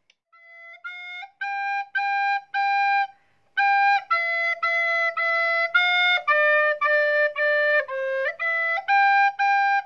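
Plastic soprano recorder playing a simple melody of short, separately tongued notes, about two a second, with a brief pause about three seconds in.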